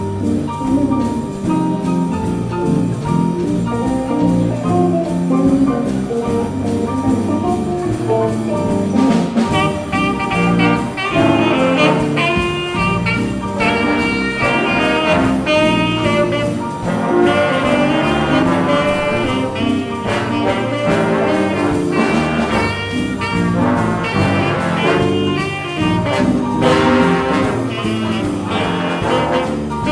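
School jazz band playing live: saxophones, trumpets and trombones over electric guitars and bass. The horns come in with brighter, higher riffs about nine seconds in.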